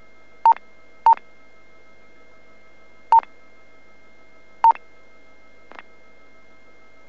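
Police radio channel beeping: four short, loud beeps at one pitch, unevenly spaced, then a fainter blip near the end, over a faint steady hum.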